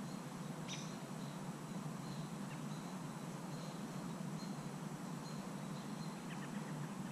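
Evening outdoor ambience: a steady low hiss with faint, scattered short chirps of small animals. One quick downward-sweeping chirp comes about a second in.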